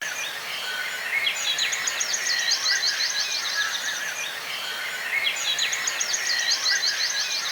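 Songbird song: a phrase of rapid, high chirps and trills, heard twice with a pause between, over steady outdoor background noise.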